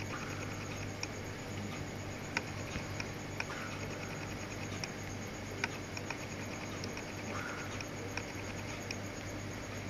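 Scattered faint clicks and a few short, soft brushing sounds from a finger working a smartphone touchscreen, over a steady low hum.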